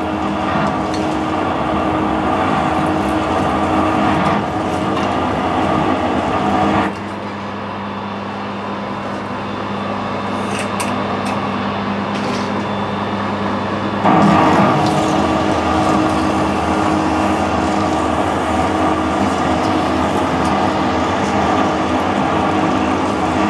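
Metal lathe drilling with a large twist drill fed from the tailstock into a spinning bar, roughing out metal quickly: steady machining noise. About seven seconds in, the noise drops to a steady low hum for several seconds, then the louder cutting noise returns.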